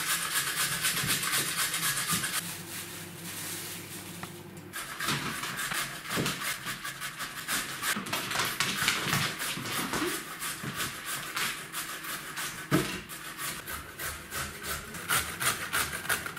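Carrots being grated by hand on a metal box grater: a quick, steady run of scraping strokes, easing off briefly about four seconds in.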